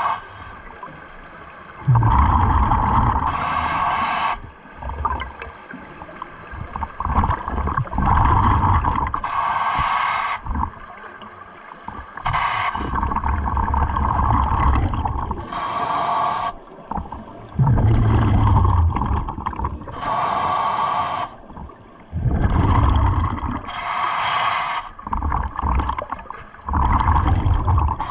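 Scuba diver breathing through a regulator underwater: a short hiss on each inhale, then a longer rumbling burst of exhaled bubbles, repeating about every five to six seconds.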